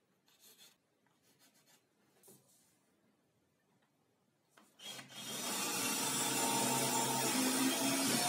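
Faint pencil strokes along a ruler, then about five seconds in a cordless drill starts and runs steadily, its bit boring into the laminated board.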